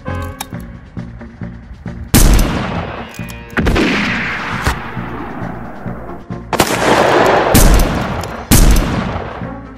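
Gunfire: about five loud shots, each with a long fading echo, spaced irregularly a second or more apart, over background music.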